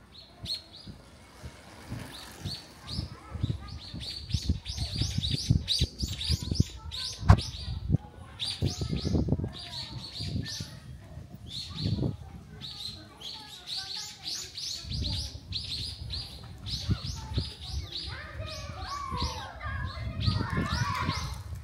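A flock of small birds chirping continuously, many short high chirps a second, over low thuds of footsteps. People's voices come in near the end.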